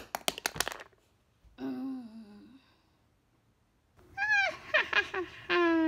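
A quick run of sharp taps and knocks, a hand and pencil striking an open textbook, then wordless vocal sounds: one falling call, and later a set of high, wavering calls ending in a longer falling one.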